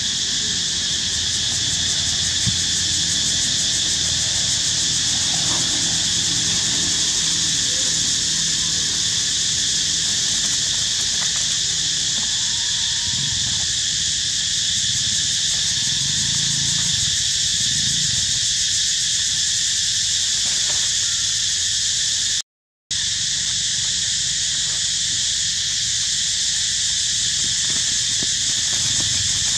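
Steady, high-pitched chorus of insects, unbroken except for a half-second gap near the end.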